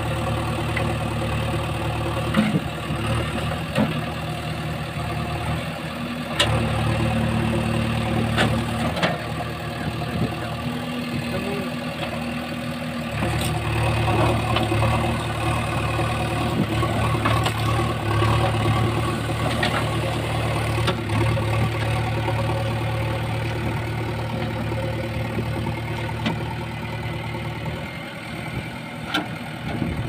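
JCB 3DX backhoe loader's diesel engine running, its note strengthening for stretches as the hydraulic backhoe arm and bucket are worked, with a few sharp metallic knocks.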